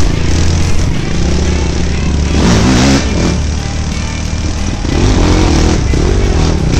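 Quad bike (ATV) engine running under way on a dirt trail, its note rising and falling as the throttle is worked.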